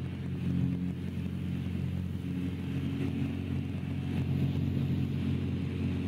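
Jabiru light aircraft's engine running steadily in flight, an even drone heard from inside the cockpit.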